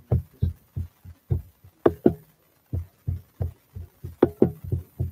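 Typing on a laptop keyboard, heard through the laptop's own microphone as a run of irregular soft thumps, about four or five a second, with a short pause about two and a half seconds in.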